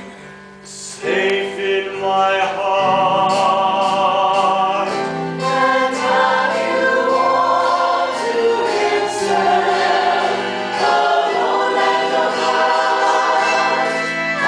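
A man and a chorus singing a stage-musical number with musical backing. The sound comes in about a second in after a brief lull.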